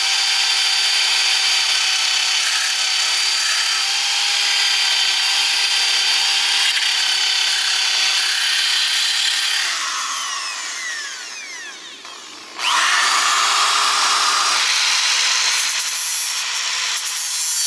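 Power tool fitted with a wire wheel, running on welded sheet steel to clean up the fresh welds. It runs steadily with a high whine for about ten seconds, spins down with a falling pitch, then starts up again suddenly and runs on.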